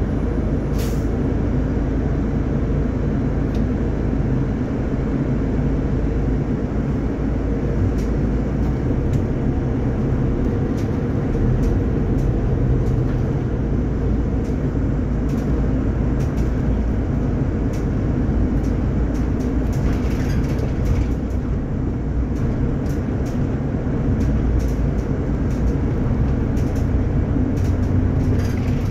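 Solaris Urbino 12 IV Hybrid city bus driving, heard from inside the cabin: a steady rumble of drivetrain and road noise with a few steady low tones, and scattered light clicks throughout.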